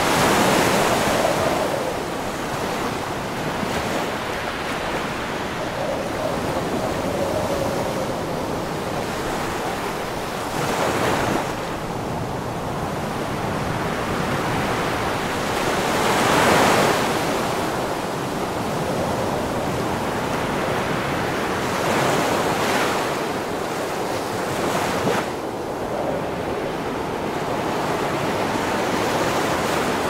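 Strong tropical wind with small waves washing onto a sandy beach, in a continuous rush. Gusts swell it every few seconds, the strongest about halfway through, and the wind buffets the microphone.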